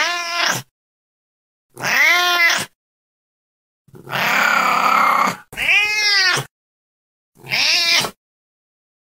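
Domestic cat meowing over and over: four meows, each rising and then falling in pitch, and a longer, rasping call in the middle.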